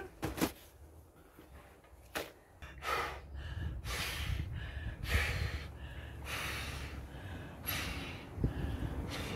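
A person blowing up a vinyl inflatable pool float by mouth, breathing into its valve. The blows and breaths come roughly once a second, starting a couple of seconds in.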